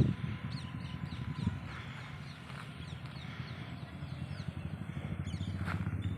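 Outdoor ambience: small birds chirping repeatedly in short falling calls over a steady low rumble.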